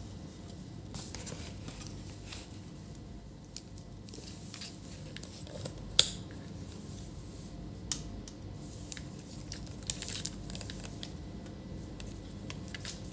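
Scattered light clicks and taps from handling multimeter test probes on a monitor's power supply board, over a low steady hum, with one sharper click about six seconds in.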